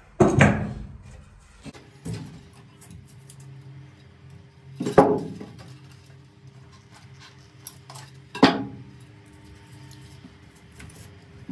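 Three loud metallic clanks, each ringing briefly: one right at the start, one about five seconds in and one about eight and a half seconds in. They come from metal tools being handled while timber battens are fixed with a caulking gun of grab adhesive.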